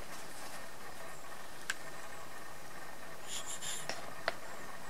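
A few light clicks and a short scratchy rubbing about three seconds in, as a rubber suspension airbag is handled in a plastic collapsible bowl of hot water, over a steady background hiss.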